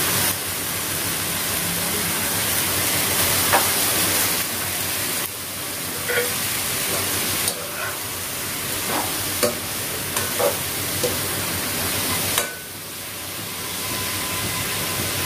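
Onions and chopped tomatoes frying in oil in a pan, sizzling steadily, while a metal slotted spoon stirs them with scattered short scrapes and clicks against the pan.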